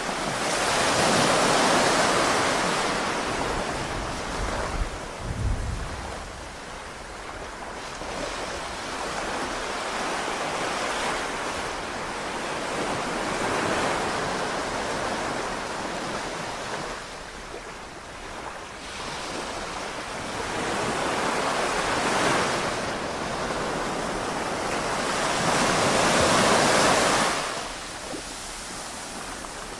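Sea waves washing onto a beach, the rush swelling and fading every several seconds. A few low rumbles of wind on the microphone come about five seconds in.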